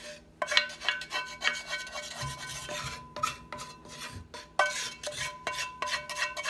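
Wooden spoon scraping roux out of a cast iron skillet held over a pot, with quick irregular scrapes, knocks and clinks that leave a short metallic ring.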